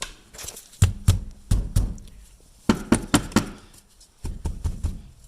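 Knocks and thumps of someone getting down and under a jacked-up car, with handling bumps on the camera, in three quick clusters of several thuds each.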